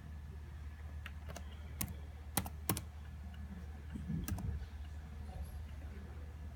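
Computer keyboard keys being pressed: a handful of sharp, separate clicks in the first few seconds, then a softer thump, over a steady low hum.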